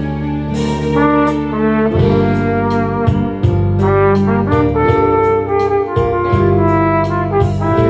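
Flugelhorn playing a slow melody, each note held about half a second or longer, over a backing track with steady bass and a regular percussion beat.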